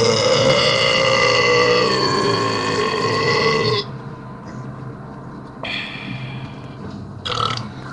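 A man's long, loud burp lasting about four seconds, dipping slightly in pitch partway through, followed by two short burps near the end.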